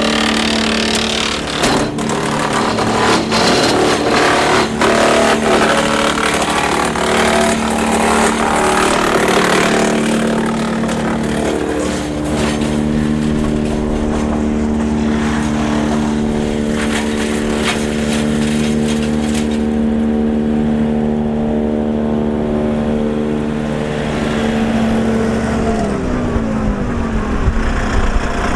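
Tractor-driven Woodland Mills TF810 PRO twin-flywheel PTO wood chipper running steadily while small branches are chipped, with dense crackling and snapping for about two-thirds of the time. The chipping then stops and the machine runs empty. Near the end the engine pitch drops as it slows down.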